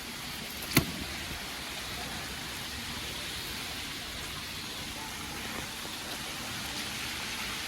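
Steady rushing noise of water from heavy rain and flooding, with one sharp click just under a second in.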